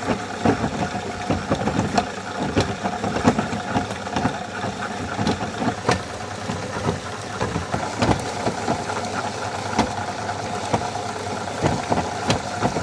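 Small tabletop Hollander beater running: its electric-motor-driven roll churns chopped cotton rag and water, beating it into paper pulp. A steady hum with irregular sharp knocks and splashes as rag passes under the roll.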